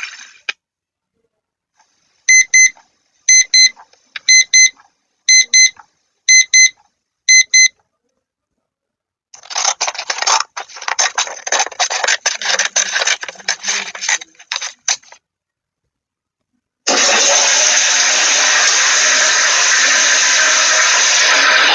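A string of separate sound clips. First an electronic alarm beeps in pairs, about once a second, six times. Then comes a few seconds of irregular clicking and rattling, and finally a steady rushing noise begins.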